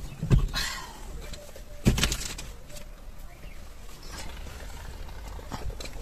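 A few dull knocks and brief rustling from people moving about and handling things inside a car cabin.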